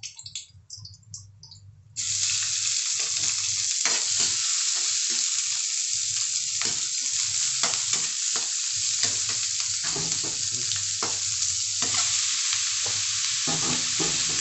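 Stir-frying in hot oil in a metal wok: chopped chilies and peppers, then sliced beef skin. After faint crackling, a loud steady sizzle starts suddenly about two seconds in, with the clack and scrape of a metal spatula stirring.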